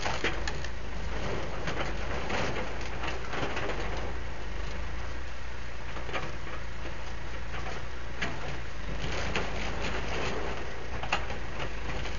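Backhoe's diesel engine running at a steady hum, with irregular cracks and crunches from demolition debris over it.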